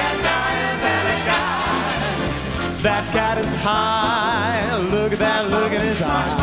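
Male a cappella group singing in close harmony, with a deep voice carrying a pulsing bass line. From about halfway through, a lead voice holds wavering notes with strong vibrato over the others.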